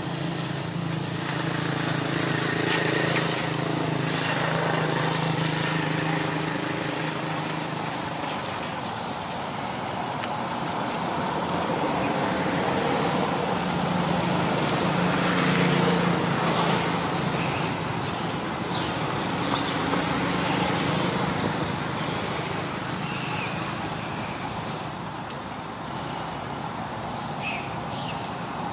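Steady background of motor traffic: a low engine drone that swells and fades twice, with short high chirps in the second half.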